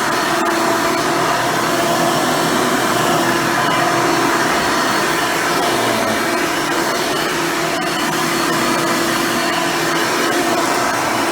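Hoover Elite upright vacuum cleaner, fitted with a dual-row brush roll, running continuously with a steady motor whine.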